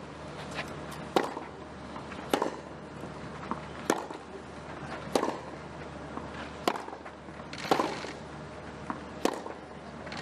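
Tennis rally: tennis balls struck by racket strings, about seven sharp hits roughly every 1.3 s as two players trade groundstrokes, with fainter ticks between.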